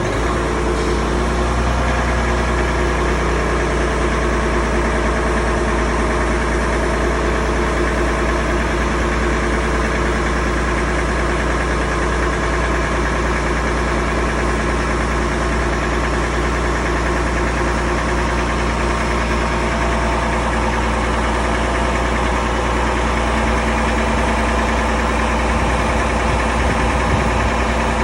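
Mercedes-Benz Actros MP4 truck's diesel engine running steadily with the cab tilted for a coolant refill, kept running so the coolant circulates while it is topped up.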